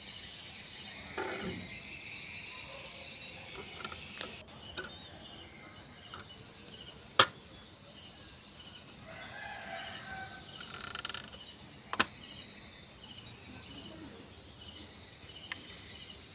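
Two sharp plastic clicks about five seconds apart from a Sony CD Walkman (D-EJ360) being handled: a CD-R snapped onto the spindle and the lid shut. Behind them runs a steady insect chirr, with a rooster crowing.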